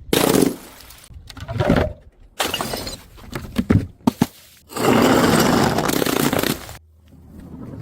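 Glass bottles smashing and shattering in a string of separate crashes with sharp knocks between them, then a longer stretch of shattering and crunching about five seconds in that lasts nearly two seconds.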